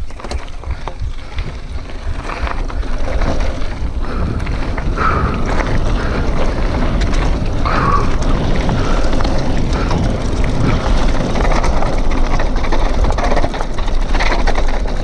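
Wind buffeting the microphone, with mountain bike tyres crunching over a loose, rocky dirt trail and the bike clattering over the bumps on a descent. The sound builds louder over the first few seconds.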